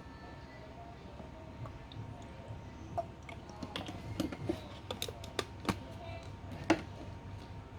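Light clicks and knocks of a plastic aroma diffuser being handled, scattered irregularly, with one louder knock near the end.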